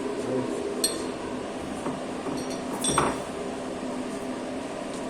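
Two light metallic clinks, about a second in and about three seconds in, as the machined steel test piece and a measuring tool knock together while its diameter is measured. A steady machine hum runs underneath.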